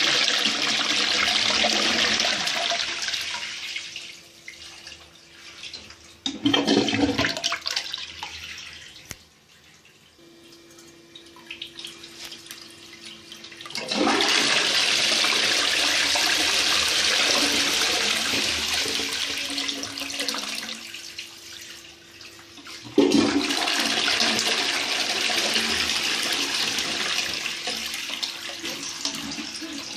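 2014 Lecico Atlas toilet being flushed several times: loud surges of water rushing through the bowl, one short, then quieter stretches of running water with a steady tone while the cistern refills.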